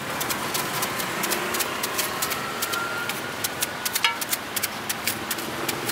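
Knife slicing wedges off a peeled crisp guava held in the hand, a quick irregular run of sharp cutting clicks, over steady street traffic.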